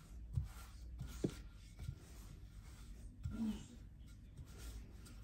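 Wooden rolling pin rolling over floured yeast dough on a countertop: faint rubbing strokes with a few soft knocks.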